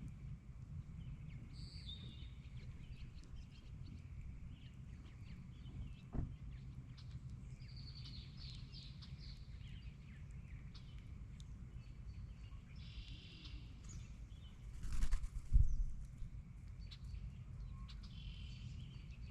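Songbirds chirping and trilling over a steady low rumble. A sharp click comes about six seconds in, and a brief louder knock with a rustle about fifteen seconds in.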